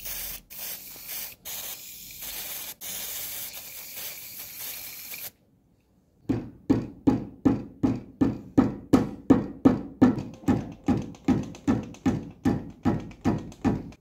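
Aerosol spray hissing in a few bursts onto the rusty press parts. After a short pause comes a run of rhythmic hand-tool strokes on the press, about three a second.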